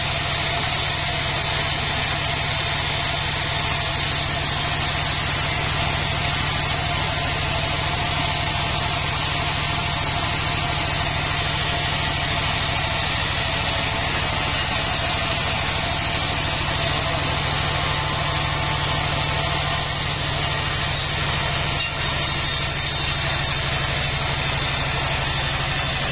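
Vertical band sawmill running steadily, with a constant low hum, as a long mahogany log is pushed through the blade.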